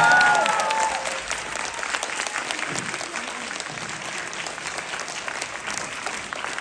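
Audience applauding, a steady patter of many hands clapping. In the first second the last note of the song dies away under it.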